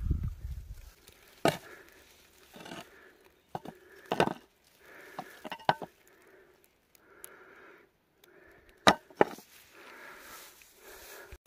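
A spade chopping into dry, grassy ground in several sharp, short strokes a few seconds apart, two of them close together near the end, with rustling of dry grass in between.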